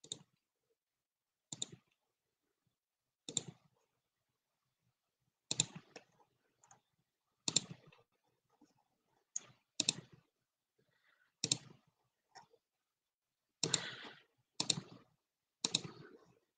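Computer mouse and keyboard clicks, single sharp clicks one every second or two, about a dozen in all, coming closer together near the end.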